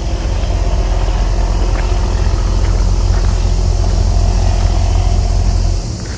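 Wind buffeting the phone's microphone as a low, steady rumble that drops off near the end.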